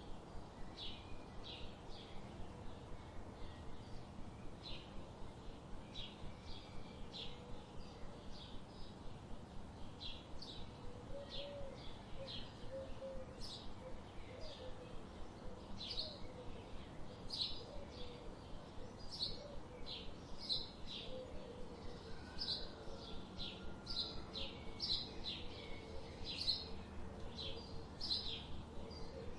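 Birds chirping: a steady run of short, high chirps, about one or two a second, with a few lower warbling notes near the middle.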